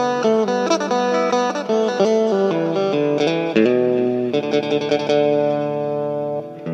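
Isan phin (Thai lute) music: a quick run of plucked notes, then longer held notes from about halfway through.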